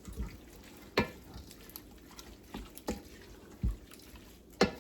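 Cooking utensils knocking against a pot: about five separate sharp taps and clacks, one of them a duller thud, while corn is stirred and seasoned.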